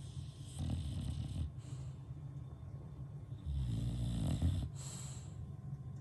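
English bulldog snoring in its sleep: two long snores, about a second in and again, louder, near four seconds, with breathy hiss between them.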